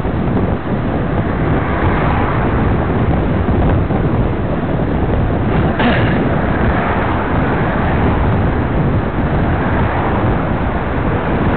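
Wind buffeting the microphone of a camera on a moving bicycle, mixed with road traffic noise. There is a short sharp click about six seconds in.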